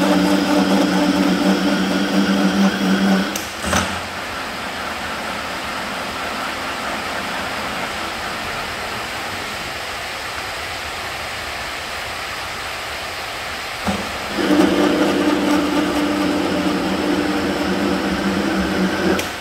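A workshop machine running with a steady pitched hum stops with a knock about three and a half seconds in, leaving a steady noisy hiss. About fourteen seconds in it starts running again, then cuts off just before the end.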